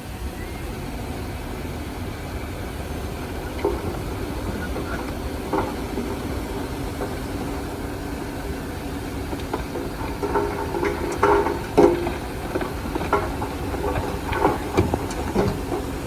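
Bulldozer's diesel engine running steadily, with repeated metallic clanks and squeals starting about ten seconds in.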